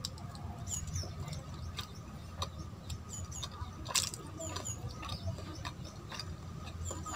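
Close-miked wet chewing of a soft, syrupy Indian sweet: many short moist mouth clicks and smacks with small squeaky chirps, over a low steady rumble.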